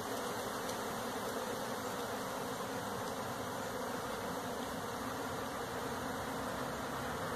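Steady buzzing hum of a large cloud of honeybees in the air around a colony that has been broken open and disturbed.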